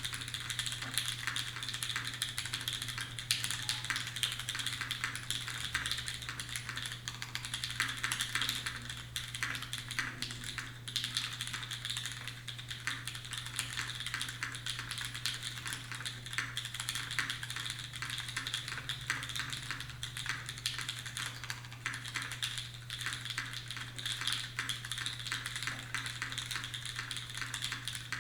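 Fast, continuous typing on a Duck Octagon V2 mechanical keyboard, with Krytox-lubed pre-retool Cherry MX Black linear switches on an aluminum top-mount plate and GMK keycaps: a dense, uneven stream of keystroke clacks. A steady low hum runs underneath.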